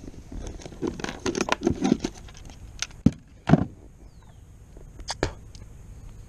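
Handling noise: a quick flurry of rustles and small knocks, then a few sharp knocks spread through the rest.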